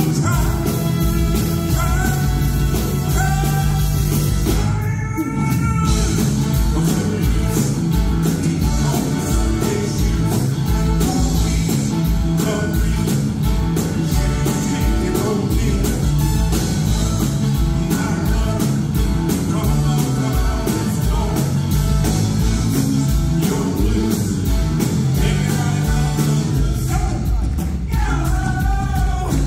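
Live rock-and-roll number: a male singer on a microphone backed by a band with piano and guitar over a fast, steady beat.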